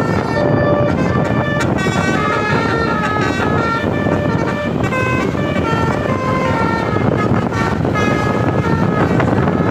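Bus telolet musical air horn playing a tune of short, changing notes over steady road and engine noise.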